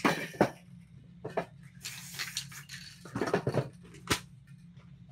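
A crumpled sheet of paper being handled over a canvas: crinkling and rustling, with a few sharp crackles near the start and a cluster of them about three seconds in. A steady low hum runs underneath.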